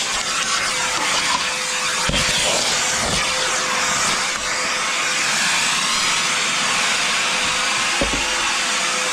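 Milwaukee M18 FUEL backpack vacuum's brushless motor running steadily: a rush of air with a constant whine. A few dull thumps come about two, three and eight seconds in.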